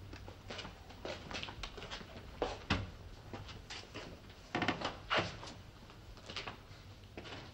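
A wooden chair dragged with short scrapes and knocked on bare floorboards, with a few footsteps, as a man sits down at a wooden table. Five or so separate knocks and scrapes, the loudest a little past halfway, over a low steady hum.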